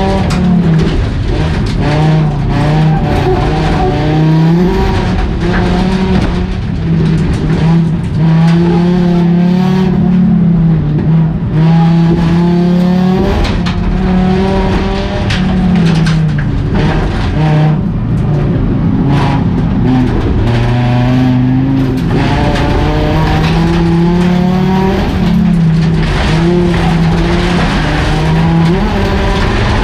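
Race car engine heard from inside the stripped cabin, rising and falling in pitch again and again as the driver accelerates, lifts and changes gear around a gravel dirt track. Frequent knocks and rattles from the car run through it.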